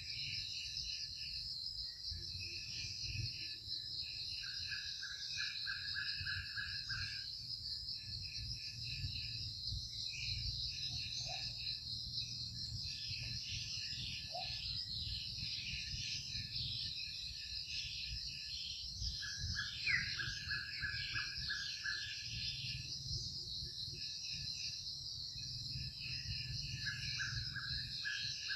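Outdoor insect chorus: a steady high drone with bouts of rapid repeated chirping that come and go every few seconds, over a low rumble.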